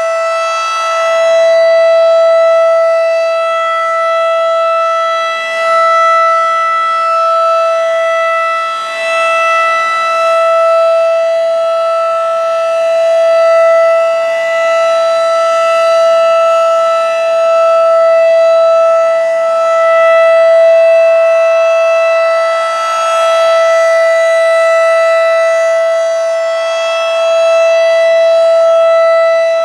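Federal Signal 2001-DC outdoor warning siren sounding its Alert signal: one loud, steady tone held at constant pitch. It swells and fades in loudness every few seconds as the rotating siren head sweeps past.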